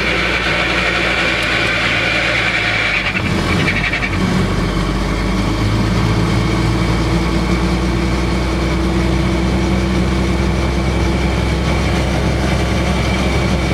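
Helicopter engine and main rotor running steadily on the ground, heard from inside the cabin. The engine note shifts about three seconds in, then holds steady.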